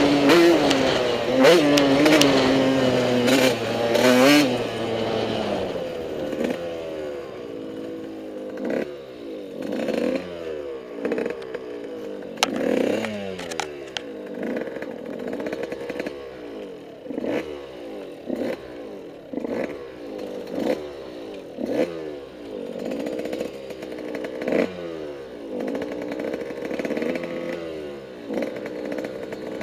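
Motocross bike engine revving hard for the first few seconds. It then runs quieter, with the revs rising and dropping away over and over, about once every second or second and a half.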